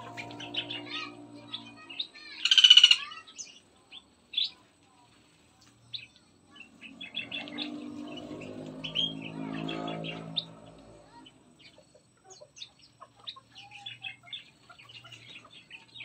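Several caged songbirds, bulbuls among them, chirping and calling in short bursts, with one loud call about two and a half seconds in. A low hum sits underneath near the start and again in the middle.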